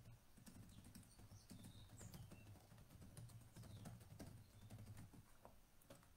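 Faint typing on a computer keyboard: irregular keystroke clicks over a low steady hum.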